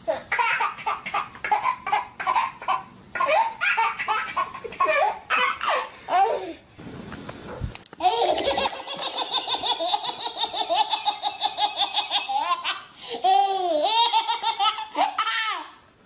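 A baby's belly laughter in quick repeated bursts. After a break partway through, a baby laughs again in a fast run of short laughs, then in long rising-and-falling squeals.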